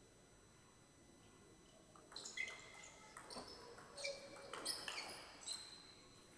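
Table tennis rally: about two seconds in, the celluloid ball starts clicking off the bats and the table, roughly twice a second, along with short high squeaks of shoes on the court floor.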